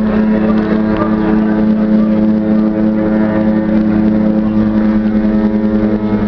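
Ships' horns in the harbour sounding together in one long, loud, steady blast, several pitches held at once like a chord.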